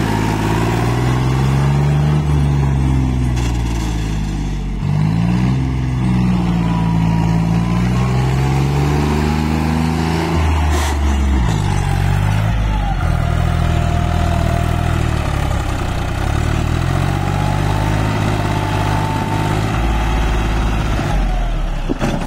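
John Deere 5050D tractor's diesel engine revved hard and eased off over and over, its pitch rising and falling several times, while driven in reverse gear to lift the front end in a stunt.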